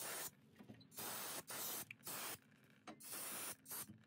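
An aerosol can of brake cleaner sprayed onto a rear brake caliper bracket in several short hissing bursts, to clean it before the new pads go in. The last burst ends just before the close.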